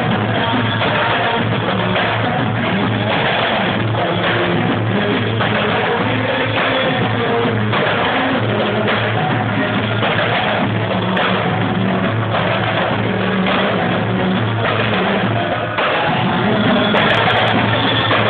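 Live zafin dance music from a marawis ensemble of hand drums played together with gamelan, going on with a steady, continuous beat.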